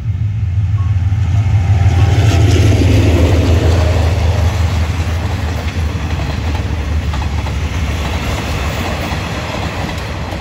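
Diesel-hauled express passenger train passing a level crossing: a low engine hum swells to its loudest about two to four seconds in, then the coaches clatter over the rail joints with a clickety-clack that slowly fades as the train moves away. The crossing's warning bell dings about once a second during the first two seconds.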